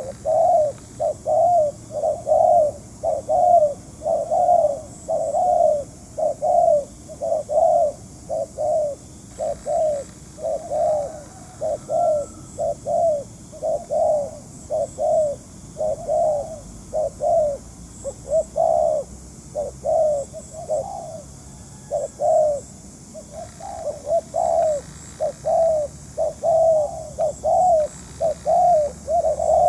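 Spotted dove cooing in a long, rapid series of short repeated coos, a little under two a second, with a couple of brief pauses.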